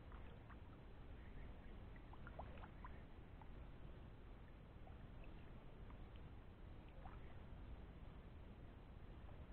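Faint drips and small splashes of a kayak paddle dipping and stroking through shallow water, scattered light ticks over a low steady background noise.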